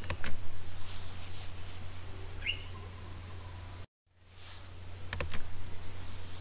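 A cricket chirping in short, regular pulses, a little under three a second, over a steady low electrical hum, with a couple of faint clicks. The sound cuts out completely for a moment about four seconds in.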